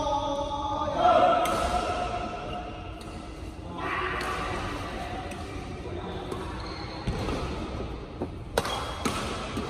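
Badminton rackets striking a shuttlecock in a doubles rally: sharp smacks that come several in quick succession in the last second and a half, in a large hall. Earlier, men's voices call out between points.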